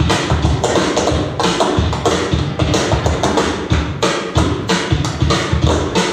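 Swing music with a steady beat and a busy low bass line.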